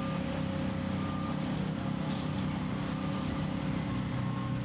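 Heavy machinery engines running in a steady low drone, with a few faint short high tones over it.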